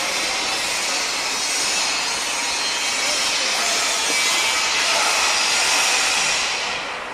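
Construction-site machinery noise: a loud, steady hiss with a grinding edge, of the sawing or cutting kind, that dies away near the end.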